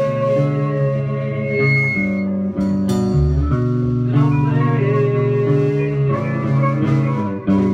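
A rock band playing: electric bass holding low notes, electric guitar and a drum kit with cymbal crashes. Near the end there is a brief break and a hit, after which the notes ring on.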